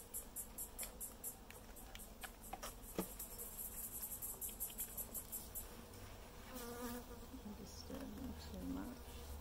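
Honeybees around an open hive: one buzzes close by for a couple of seconds past the middle, its pitch wavering. A very high insect chirp pulses about five times a second through the first half, and a few light knocks come early as the wooden frames are set into the box.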